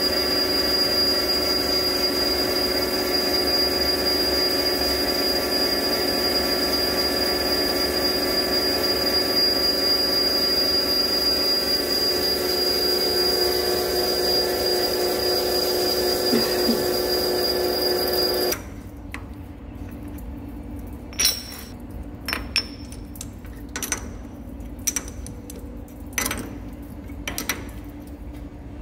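TM-26120G centre lathe turning down the outer diameter of a steel hollow bar: a steady machining sound with a high whine, which stops abruptly about two-thirds of the way in. Then a string of sharp metal clinks as the cutting tool in the toolpost is changed to a WNMG insert.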